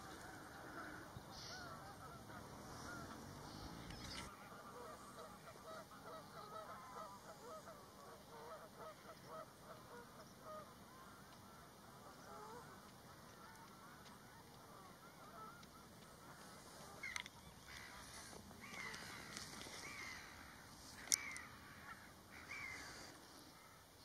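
Faint honking and chattering of geese, a quick run of short calls that thins out about halfway through. In the last few seconds there are a few sharp, higher-pitched bird calls, with one brief loud click among them.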